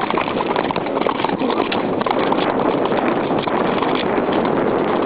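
Hoofbeats of a horse galloping on concrete, a fast run of hard hoof strikes on the road surface.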